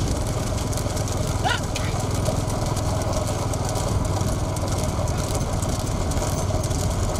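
Steady engine and road noise of a motor vehicle driving along a road at the pace of racing bullock carts. A short rising call cuts through about one and a half seconds in.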